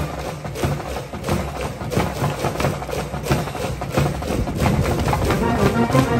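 A school cheering band's drums and percussion playing a steady driving beat while the brass drops out, with a few brass notes coming back in near the end.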